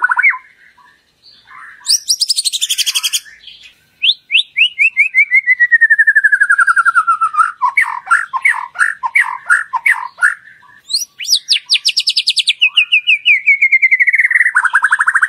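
White-rumped shama (murai batu) song: loud, fast trilled phrases, several sliding down in pitch from high to low, broken by choppy note runs, with a short pause about a second in.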